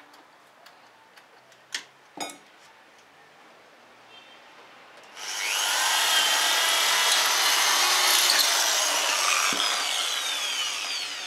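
Electric drill boring into an aluminium window frame. It starts about five seconds in, a loud high grinding whine, and eases off near the end. Before it come a few light clicks and two sharp knocks.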